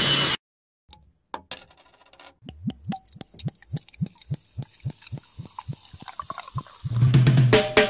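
Beer poured from a bottle into a glass, glugging in a quick run of short rising gurgles about five times a second. Before it, a propeller plane's engine noise cuts off abruptly just after the start, and band music comes in near the end.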